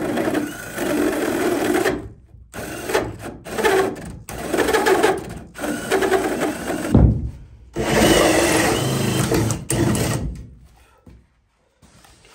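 Cordless drill driving a hole saw through a wooden 2x4 framing plate, running in several stretches with short stops between, then stopping about ten seconds in.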